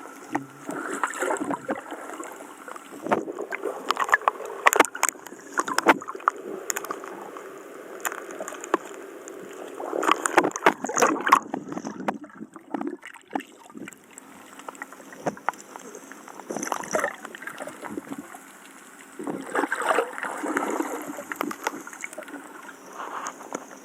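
Water sloshing and splashing close to the microphone during snorkeling, with many irregular knocks and clicks.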